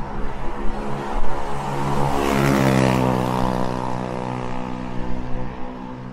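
A motor vehicle passes close by on the street: its engine hum swells to a peak about two and a half seconds in, then drops slightly in pitch and fades as it moves away.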